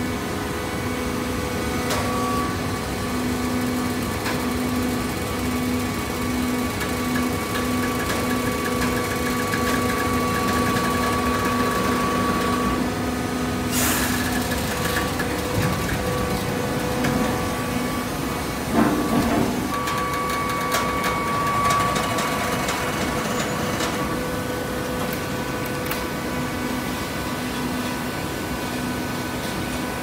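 Horizontal hydraulic baler running: a steady mechanical hum from its hydraulic power unit, with a brief noisy burst about halfway through and a sharp knock a few seconds later.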